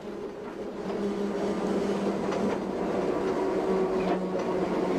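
Four-wheel electric tram running along the street: a steady hum over running noise from the wheels and rails. It grows a little louder over the first second or two, then holds steady.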